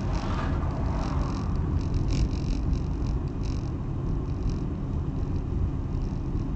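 Steady low rumble of a Suzuki car's engine and tyres on the road, heard from inside the cabin.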